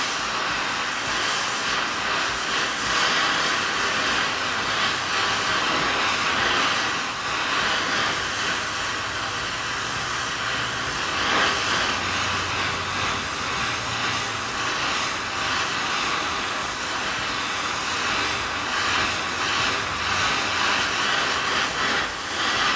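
Oxy-fuel torch flame hissing steadily while it heats a steering wheel hub on its shaft, to loosen a seized part before quenching.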